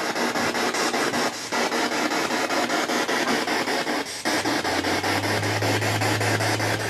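Spirit box scanning through radio frequencies: loud static chopped up several times a second as it sweeps. A low steady hum joins about two-thirds of the way through.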